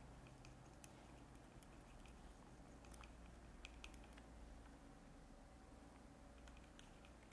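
Near silence, with scattered faint small clicks and taps of a paintbrush mixing oil paint on a palette.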